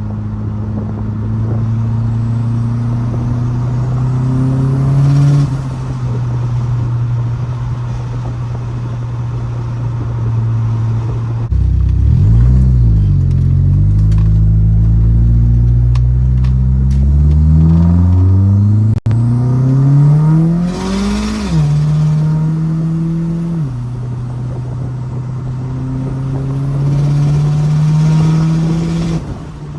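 1997 Mitsubishi Eclipse GSX's turbocharged 2.0-litre four-cylinder under way, its revs climbing and dropping several times as the car accelerates and shifts. A long climb in the middle breaks off briefly and then rises again.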